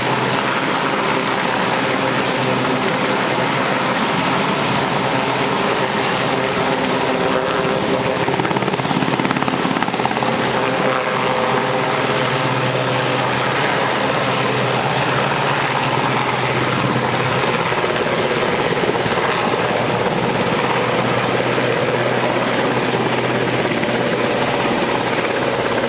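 Westland Sea King search-and-rescue helicopter hovering low over the water, its rotor and twin turbine engines running steadily.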